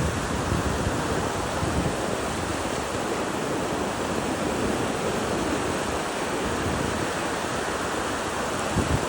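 Steady rushing wash of sea surf, with wind on the microphone.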